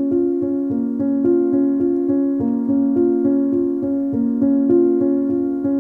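Background music: a piano-like keyboard plays a steady, repeating pattern of notes, about three or four a second.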